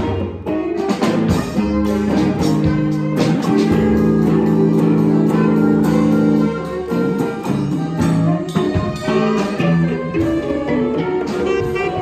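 Free improvisation by a small group: alto saxophone, electric guitar and a hand drum. Several notes are held together from about three seconds in, break off past the middle, and give way to scattered hits and short phrases.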